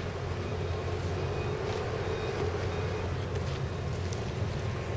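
A steady low engine drone, unchanging in level and pitch.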